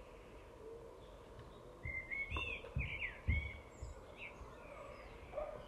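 A small songbird chirping a quick run of short, sliding notes about two seconds in, lasting a couple of seconds, over steady outdoor background noise. A few low bumps come at the same time.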